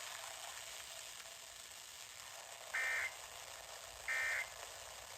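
Emergency Alert System end-of-message data bursts: two short, buzzy blasts of SAME digital tones about a second and a half apart, over steady radio hiss. They signal the end of the weather radio alert message.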